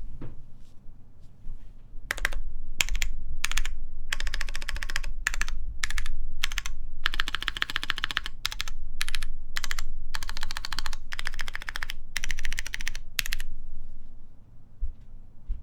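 Typing on a Matrix Lab ME SE mechanical keyboard with stock Kailh Polia switches, GMK Pixel keycaps and a full aluminum plate. Fast runs of keystrokes come in bursts broken by short pauses, after a slower start, and stop about two seconds before the end.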